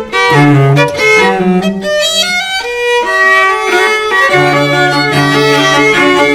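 String trio of violin, viola and cello playing classical chamber music, a busy upper melody over lower held notes; the low notes drop out for about two seconds partway through, then return.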